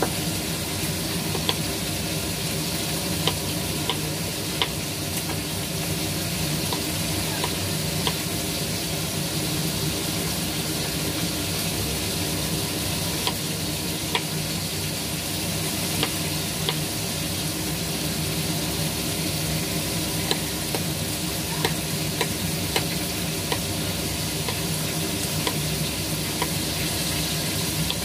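A kitchen knife cutting through squash on a wooden cutting board, making short, sharp taps at an irregular pace, over a steady hiss and low hum.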